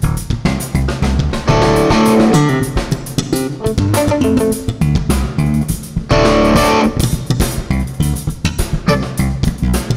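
Jazz band playing live: electric bass and another plucked electric string instrument over a drum kit, with drums and cymbals struck throughout. Fuller, louder chords come in about 1.5 s and again about 6 s in.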